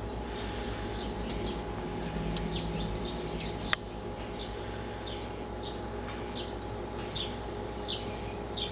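Small bird chirping over and over, short high chirps that slide downward, about two a second, over a steady low hum. A single sharp click comes about four seconds in.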